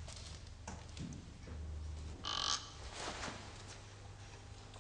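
Soft footsteps and small knocks on a stone floor, with a short squeaky creak about two seconds in, over a steady low hum.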